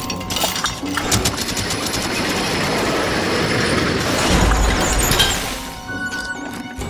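A dense rattling, clattering rumble that builds, peaks with a deep boom about four and a half seconds in, then dies away over the next second.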